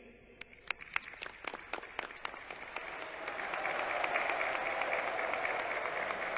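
Large crowd applauding: a few scattered claps about half a second in, swelling within a few seconds into dense, steady applause.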